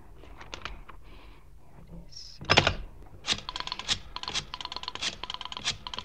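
Rotary telephone being dialled, as a radio-drama sound effect: a loud clunk about two and a half seconds in, then runs of rapid clicks from the dial.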